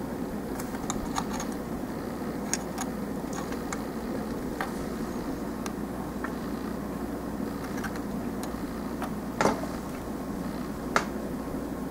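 Light clicks and taps of plastic model kit parts being handled, snapped together and set down on a table, the loudest tap about nine and a half seconds in, over a steady background hum.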